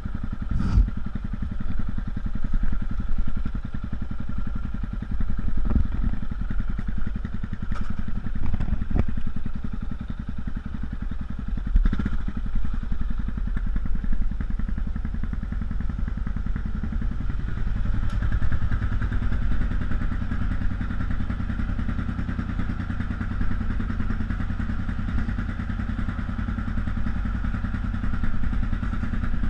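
Yamaha XT660X single-cylinder engine idling through aftermarket Leo Vince exhausts, with a few short knocks in the first half.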